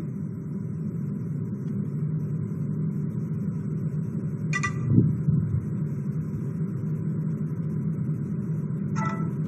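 Steady low background rumble, with a short high tone about four and a half seconds in, a dull knock just after it, and another short tone near the end.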